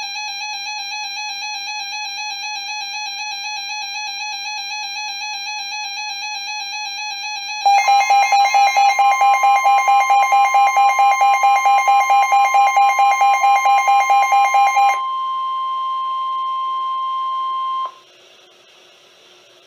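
Emergency alert tones on a NOAA Weather Radio broadcast. A warbling electronic alarm sounds, then rapid beeping at about five a second joins it, along with the steady weather radio warning alert tone. The steady tone carries on alone for a few seconds and cuts off, leaving faint radio hiss: the signal that a warning message is about to be read.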